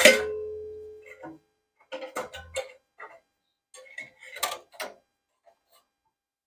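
A loud sharp metallic clank that rings on with a clear tone, fading over about a second, followed by a scatter of smaller knocks and clatters of hard objects being handled.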